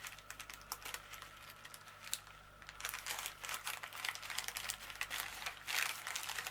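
Packaging being handled and opened, crinkling and crackling in quick irregular clicks that grow busier about three seconds in.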